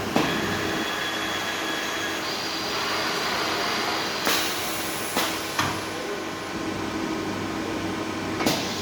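Vacuum paint dosing machine running with a steady hum, broken by sharp clicks and knocks about five times.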